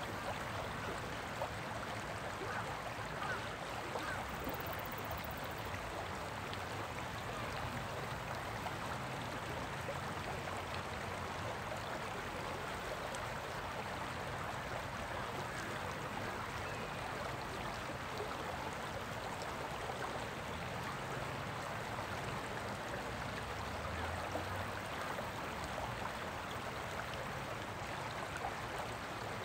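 Water of a shallow, rocky stream running over stones: a steady, even rush with no pauses.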